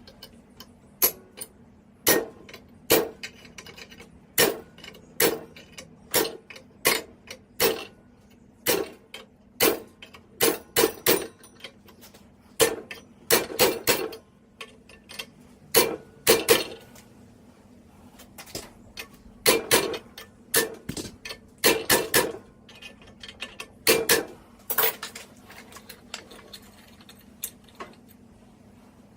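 Hammer blows on hot iron over an anvil, metallic and irregular, roughly one a second with some quick doubles and clusters. They stop a few seconds before the end.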